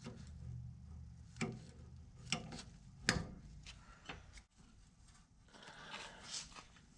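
A few separate light metallic clicks and knocks from hand tools being handled and set down, the loudest about three seconds in, with some soft rustling near the end.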